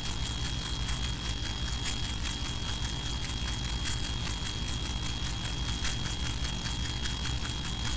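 Steady room noise: a low rumble with a thin, steady high-pitched whine and faint scattered ticks.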